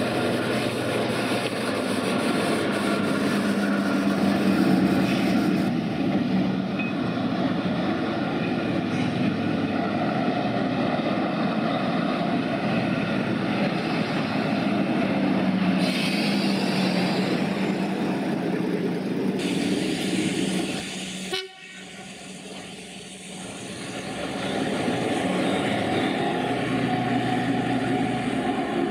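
Class 03 diesel shunter's eight-cylinder Gardner engine running with a steady drone as the locomotive works; the sound drops sharply quieter about three-quarters of the way through for a few seconds before the engine drone returns.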